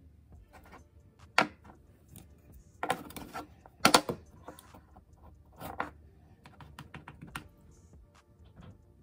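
Irregular sharp clicks and taps of small objects being handled, like makeup cases and tools picked up and set down. The loudest come about a second and a half and four seconds in, with a quick cluster around three seconds, over faint background music.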